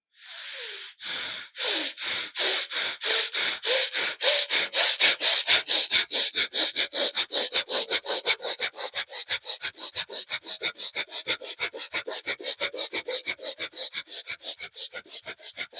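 Bhastrika (bellows breath) through the right nostril with the left held closed: forceful nasal inhales and exhales of equal strength in a steady train. It starts at about two strokes a second, speeds up to about four a second, and stops suddenly.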